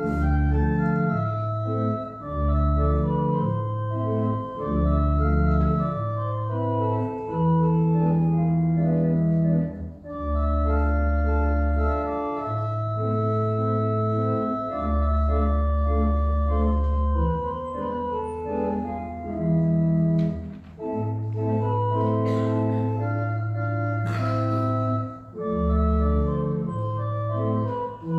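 Organ playing slow, sustained chords over long held bass notes that change every second or two.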